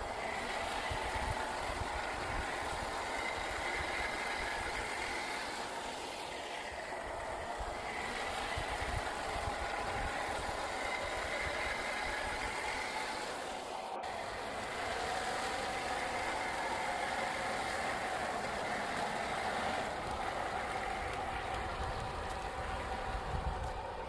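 Electric motor and gearbox of a 1/10-scale RC crawler truck whining steadily as it drives, the pitch drifting a little with throttle, with a brief break about fourteen seconds in.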